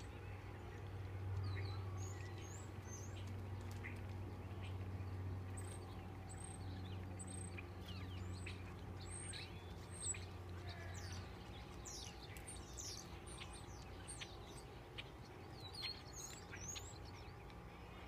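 A flock of small birds gathered in a palm tree to roost at dusk, chirping constantly: many quick overlapping high chirps and tweets, over a low steady hum that drops away about eleven seconds in.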